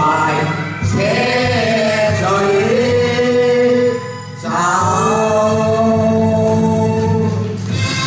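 Two male singers singing a Chinese duet through microphones in long, drawn-out held notes, with a brief break about halfway through.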